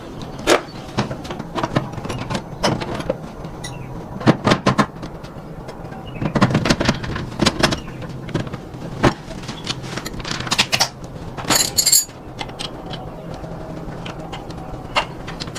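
Irregular metallic clinks and knocks of hand tools working on motorbike parts, with a brief rattling clatter about twelve seconds in, over a steady low hum.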